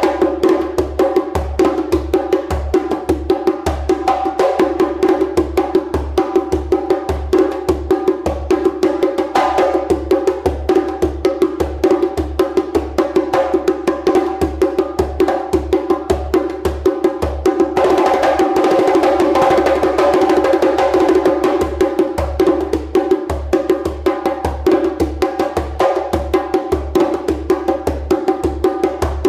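Hand drum with a skin head struck with bare hands in a fast, steady rhythm of several strokes a second. Past the middle it briefly turns into a rapid roll.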